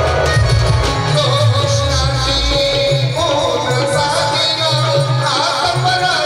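Live Marathi tamasha folk music: drums keeping a beat under a wavering melody line, with a tuntune string drone played alongside.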